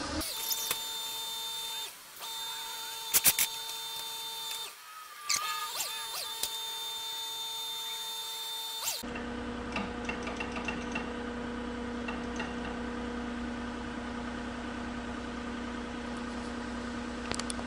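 Truck-mounted forklift's combustion engine running with a steady hum and a high whine, dipping out briefly twice. About nine seconds in it settles to a lower steady hum.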